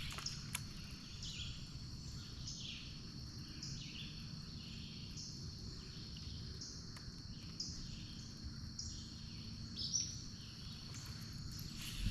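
Insects singing in a steady chorus: a constant high whine with rasping calls repeating more than once a second. A low rumble runs underneath, and there are a few short, sharp clicks.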